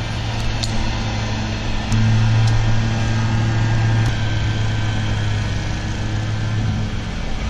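Lawnmower engine running steadily: a low hum with overtones that grows louder for about two seconds, starting about two seconds in.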